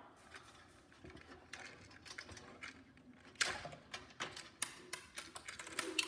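Irregular light clicks and taps as the plastic control-panel housing and metal body of a Breville pressure cooker are handled and shifted during disassembly, with a sharper knock about three and a half seconds in.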